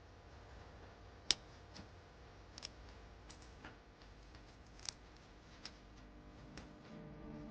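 Scattered sharp snips and clicks of hoof trimming tools cutting into hoof horn, the loudest about a second in and another near the middle.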